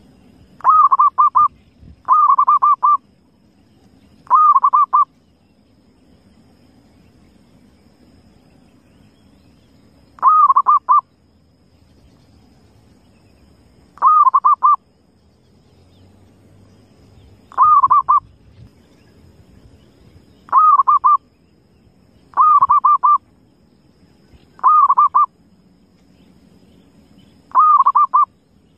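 Zebra dove (perkutut) cooing: ten short phrases, each a quick run of staccato notes lasting under a second, repeated at irregular gaps of one to six seconds.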